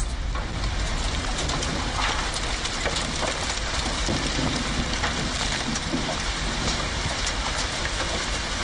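Dust and small debris from a tower collapse raining down: a steady rushing hiss thick with small patters and ticks, like heavy rain, over a low rumble. A faint steady high tone runs underneath.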